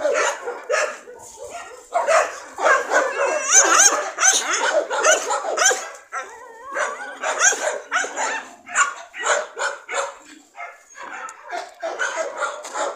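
Several dogs barking and yipping in quick succession, with some whining, almost without pause; the calls ease off briefly about halfway through and again near the end.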